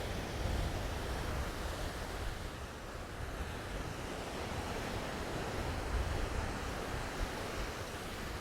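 Ocean surf washing steadily onto the beach, with wind buffeting the microphone in low gusty rumbles.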